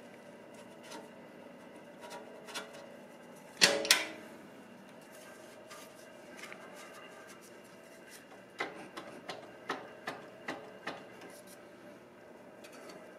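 Metal hand tools clinking and tapping against motorcycle parts and a metal skid plate. There is one loud clank about four seconds in, then a string of light clicks, about two or three a second, over a faint steady hum.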